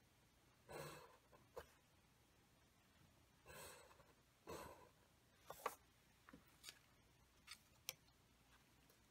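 Faint pencil strokes scratching along a plastic set square on drafting paper, three of them in the first half. Then several light clicks and taps as plastic drafting rulers and a template are handled and set down.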